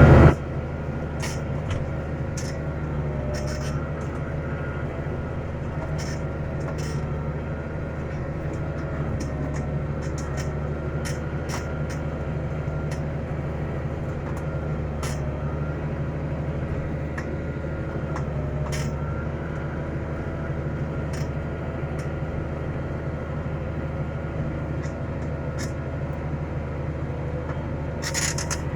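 Tractor engine running steadily at an even speed, with scattered light clicks and knocks throughout.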